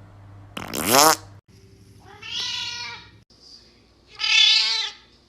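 A cat meowing three times: a short, loud, rising cry just under a second in, then two longer meows about two and four seconds in.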